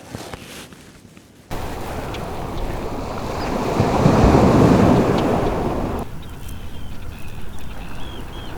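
Sea surf washing onto the shore: a noisy swell starts suddenly, builds to its loudest about four seconds in and cuts off abruptly about two seconds later. After it, a run of short, high chirping calls from small shorebirds.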